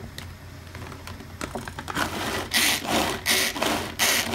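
Starfrit manual food chopper working onion: a few light clicks as it is handled, then from about two and a half seconds in, a rhythmic run of loud rattling chopping strokes, about one every 0.7 seconds.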